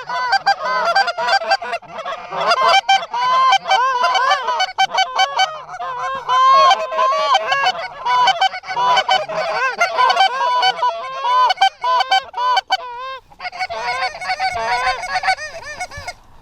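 Many Canada goose honks and clucks overlapping in a rapid, nearly continuous chatter, with a brief break about 13 seconds in.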